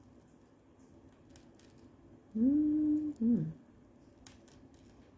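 A woman's closed-mouth "hmm-hm" hum, one held note that rises at the start and then a short falling one, as she puzzles over a piece of jewelry, with a few faint clicks of jewelry being handled.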